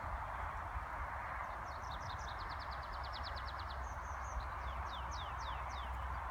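A small songbird singing: a fast, even trill of short high notes, then a few slower notes that slide downward, over a steady background hiss.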